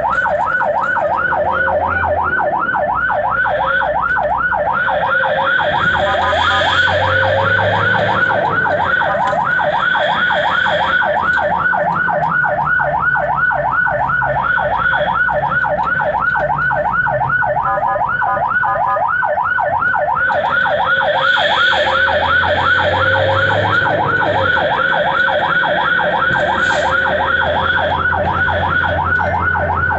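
Ambulance siren on a rapid yelp, its pitch sweeping up and down several times a second without a break, heard from inside the ambulance's cab over the low rumble of its engine.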